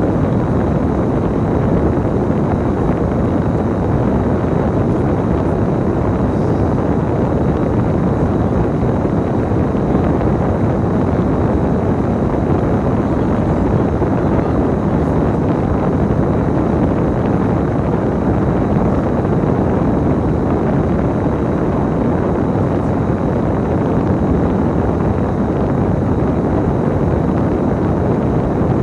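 Steady drone of a bus under way, engine and road noise heard from inside the cabin.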